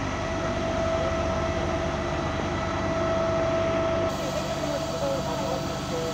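Fire truck engine running steadily, a low rumble with a constant whine over it. Faint voices are heard in the background.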